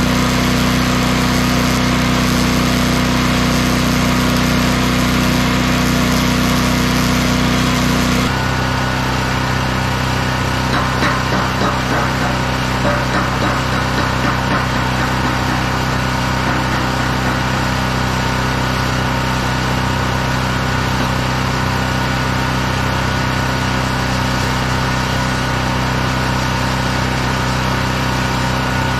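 A small engine running steadily at a constant speed; its tone shifts about eight seconds in. A brief patch of crackling comes a few seconds later.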